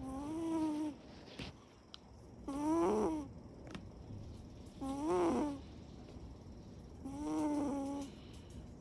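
Siberian cat snoring: four pitched snores, each under a second long, about every two seconds.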